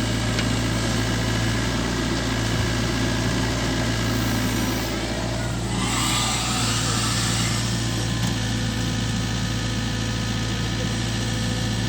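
Heavy diesel engine idling steadily, with a brief hiss about six seconds in that lasts over a second.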